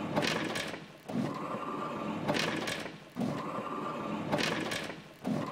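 Whirring of a remote-controlled roller shutter, in three pulses about two seconds apart, each ending in a brief dip to quiet.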